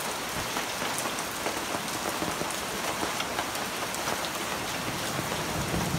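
Heavy rain falling steadily, with rainwater streaming and splashing down a rain chain from the roof gutter and scattered sharp drips.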